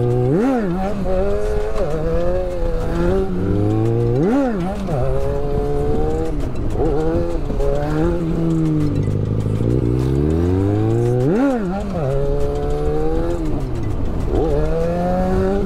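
Yamaha XJ6's 600 cc inline-four with a straight-pipe exhaust, revved hard in three sharp throttle blips to lift the front wheel for a wheelie. Between the blips the engine pitch rises and falls as the bike pulls away and slows.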